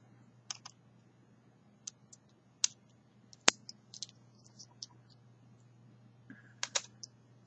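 Scattered light clicks and taps of an opened Honda remote key fob's plastic casing and coin-cell battery being handled, with no steady rhythm; the sharpest click comes about three and a half seconds in.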